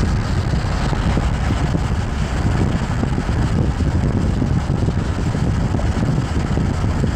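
Wind buffeting the microphone: a loud, constant rumbling rush with rapid low flutter and no distinct events.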